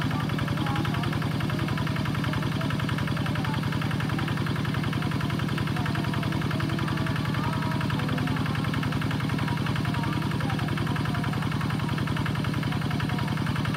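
Engine of a two-wheel walk-behind hand tractor running steadily with a rapid, even beat as it drives its cage wheels through a flooded rice paddy.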